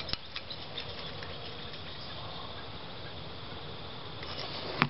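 Steady outdoor background hiss with a few light clicks of a steel bracket being held and shifted against a steel bar, the sharpest click just at the start.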